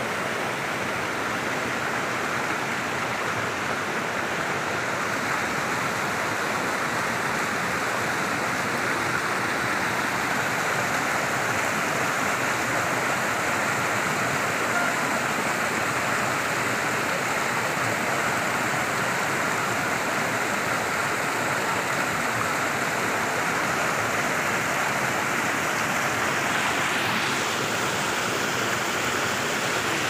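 Stream water rushing and cascading over rocks and boulders, a steady, unbroken rush.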